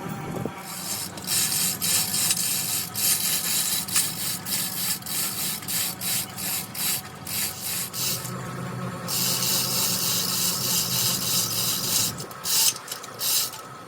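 Rasping scraping strokes, about two a second, with a steadier stretch of scraping partway through before the strokes resume.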